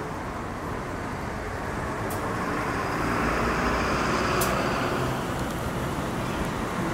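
A city bus driving past, its engine rumble and tyre noise swelling to a peak about three to four seconds in and then fading.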